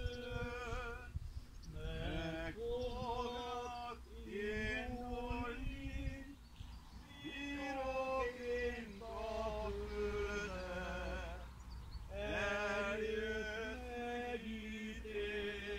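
Slow, unaccompanied funeral singing: phrases of long held notes with short breaks between them.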